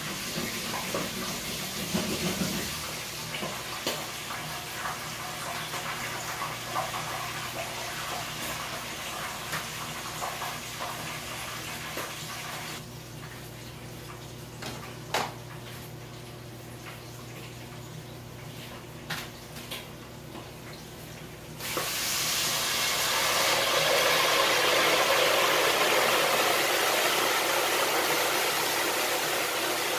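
Pork leg deep-frying in a pot of hot oil for crispy pata: a steady sizzle with scattered pops and crackles. It drops quieter for several seconds in the middle, then turns suddenly much louder about two-thirds of the way through.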